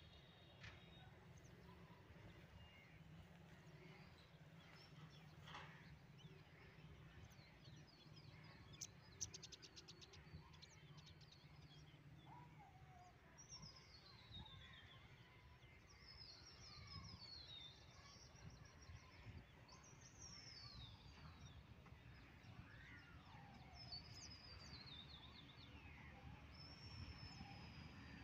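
Quiet outdoor ambience: birds chirping, with several quick falling calls, over a faint low rumble.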